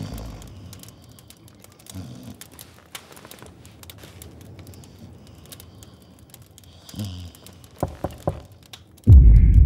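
Animated-film sound effects: a quiet room with faint, irregular crackling and a few soft low swells. Three quick thumps come near the end, then a sudden loud, low boom.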